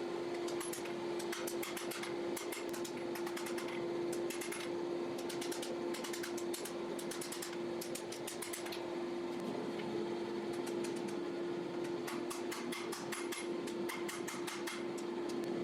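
Hammer strikes on a steel knife blank being forged, coming in quick runs of sharp metallic ticks, over a steady hum.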